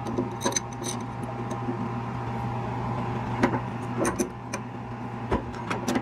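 Pliers and an adjustable wrench clicking against a brass compression fitting as it is tightened onto a copper gas line: a handful of short, scattered clicks over a steady low hum.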